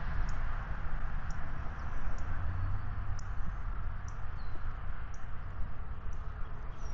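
Outdoor ambience: a fluctuating low rumble of wind on the microphone, with short high-pitched chirps repeating about once a second.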